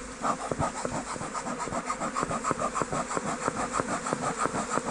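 Honeybees of a shaken-out colony buzzing in a crowd around the beekeeper, a rapid pulsing of several beats a second.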